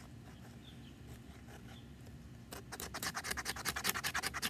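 Mora Bushcraft knife scraping a fatwood stick to raise tinder shavings: a fast, even run of short scratchy strokes, about ten a second, starting about two and a half seconds in.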